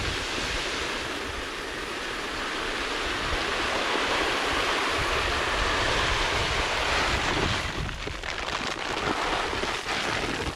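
Feed oats pouring from a 50-pound paper sack onto a pile of oats: a steady hiss of falling grain that thins and breaks up about eight seconds in as the sack runs empty.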